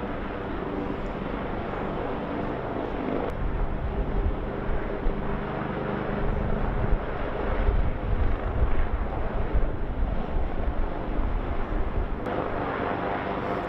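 A helicopter drones steadily, joined after about three seconds by deep, gusty wind rumble buffeting the microphone.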